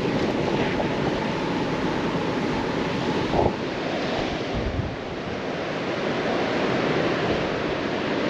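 Strong wind blowing across the microphone, a steady rush of noise, with a brief knock about three and a half seconds in.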